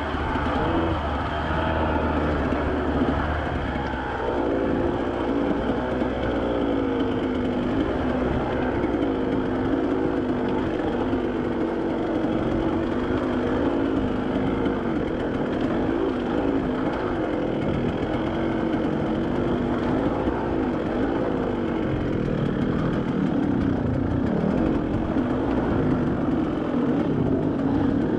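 Off-road vehicle engine running continuously on a trail, its pitch rising and falling as the throttle changes.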